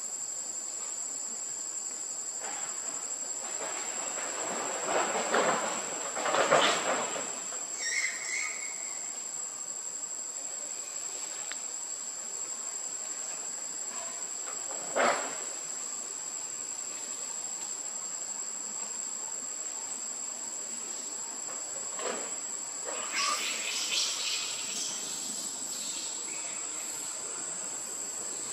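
Steady, shrill drone of insects on one high tone throughout. Over it come a few short rushing noises, loudest about six seconds in, again at fifteen seconds and around twenty-two to twenty-five seconds, plus a brief chirp about eight seconds in.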